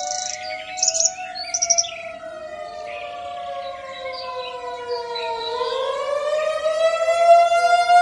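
Federal Signal 2001-DC outdoor warning siren sounding its Attack signal: a wavering tone that falls and rises in pitch, getting louder toward the end. Birds chirp briefly in the first two seconds.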